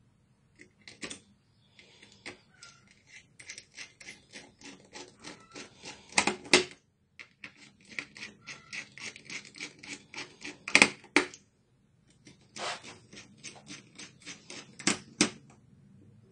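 Rapid small clicks and ticks of metal and plastic parts being handled on a laptop motherboard around its heatsink and fan, several a second with short pauses. A few sharper clicks stand out, about six seconds in, near eleven seconds and near fifteen seconds.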